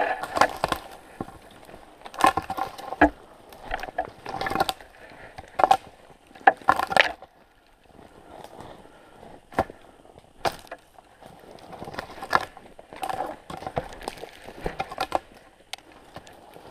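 Footsteps crunching in snow and brushing through dry twigs and branches, in irregular bursts of sharp crackling, with a quieter lull around the middle.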